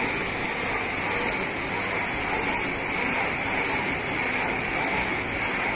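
High-speed paper straw making machine running: a steady mechanical whir and hiss with a faint regular pulse about three times a second.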